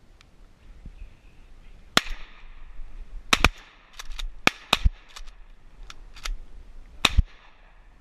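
Shotguns firing in a rapid, uneven volley from more than one gun: about eight sharp reports between two and seven seconds in, several in quick pairs, with fainter shots between them.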